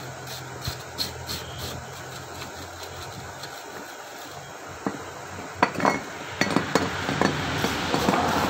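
Metal hand tool knocking and clinking against the housing of an Isuzu Panther starter motor as it is dismantled, with faint ticks at first and a run of sharp metallic knocks from about five seconds in, over a steady low hum.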